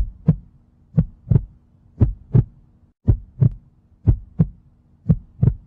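Heartbeat sound effect: a steady lub-dub, pairs of thumps about a third of a second apart repeating about once a second, over a low steady hum.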